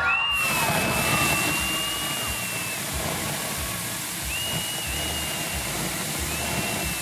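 A steady, loud rushing hiss of air sets in at once. Over it a high thin squeal is held for about three seconds, and shorter ones come twice later.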